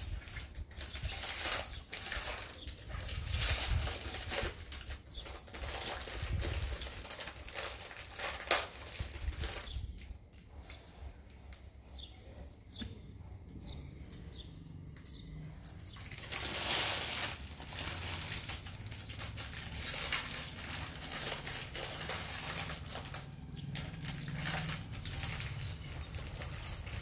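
Glass bangles being handled and shuffled on a cloth: irregular rustling and soft clicks of glass, quieter for a few seconds in the middle, with a couple of short high ringing tones near the end.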